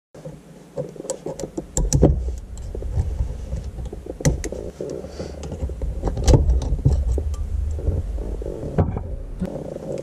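Snap ring pliers clicking and clinking against the metal linkage of a stock manual shifter while its C-clip is worked off: scattered sharp metal clicks over a steady low hum.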